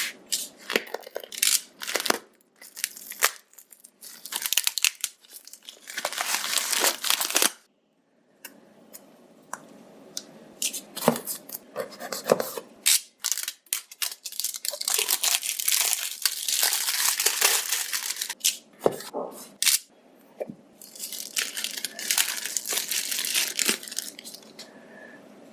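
A phone's packaging being torn open and crinkled by hand, in repeated stretches of tearing and rustling with short knocks and clicks in between.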